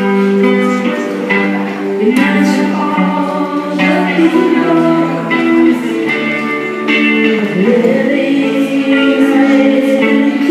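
A busker singing into a microphone and playing an electric guitar: a live song with long held, sliding vocal notes over plucked guitar.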